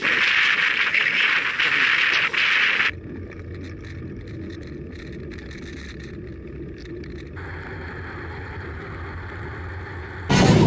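Rushing wind and tyre noise on a camera riding along with road bikes. About three seconds in it cuts to a quieter low steady hum, and a louder rush comes back just before the end.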